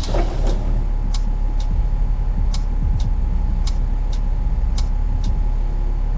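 Moving bus heard from inside, its engine and road noise rumbling steadily under a faint steady whine, with sharp regular ticks about twice a second.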